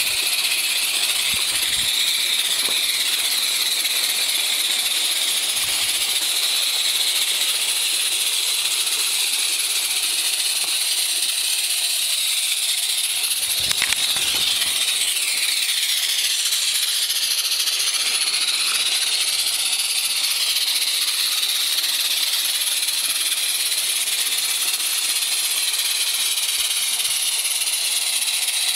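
Two small live-steam garden railway locomotives running together with a steady high hiss of steam. There is a brief low knock about halfway through.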